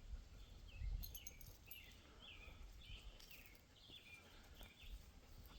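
Faint birdsong: a string of short, quick chirps repeating, with a few faint clicks about a second in and again near three seconds.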